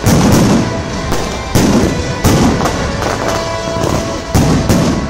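Aerial firework shells bursting overhead: about eight sharp bangs, several coming in quick pairs, over a continuous rumble and crackle of the display.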